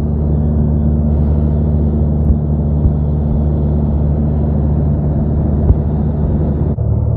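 Cessna 175 light aircraft's piston engine and propeller droning steadily, heard from inside the cabin in flight, with its tone shifting abruptly near the end. A few faint knocks are heard.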